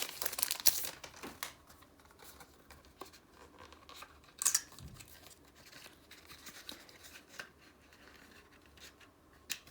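Packaging being handled and opened: crinkling and tearing, loudest in the first second, another short rustle about four and a half seconds in, and a few sharp clicks near the end.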